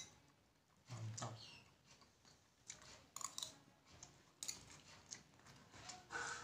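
A person eating instant fried noodles up close: faint slurping and chewing with scattered small clicks.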